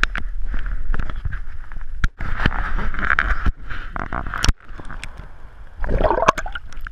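Lake water sloshing and splashing as a hand lowers a caught largemouth bass over the boat's side for release, with scattered clicks and knocks. About six seconds in comes a louder gurgling rush as the fish and hand go under the surface.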